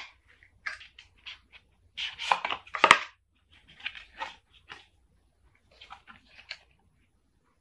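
Apple MagSafe charger's cardboard and paper packaging being opened and handled: a run of irregular rustles and scrapes, loudest about two to three seconds in, with a sharp snap among them.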